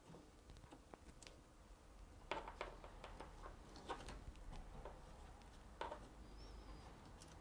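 Faint clicks and light knocks of hands handling a 3D printer's metal frame and small parts during assembly, with a few sharper taps about two seconds in, at four seconds and just before six seconds.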